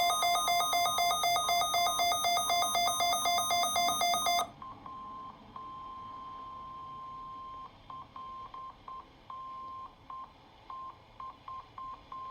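NOAA Weather Radio alert signalling during a weekly test. A loud warbling alarm, alternating rapidly between a low and a high tone, cuts off about four and a half seconds in. It is followed by the roughly 1 kHz warning alarm tone, broken up: one steady stretch of about two seconds, then a string of short, uneven beeps instead of a continuous tone.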